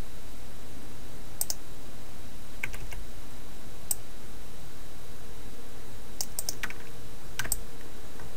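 Sparse clicks of a computer keyboard and mouse in a handful of short clusters, over a steady low hum.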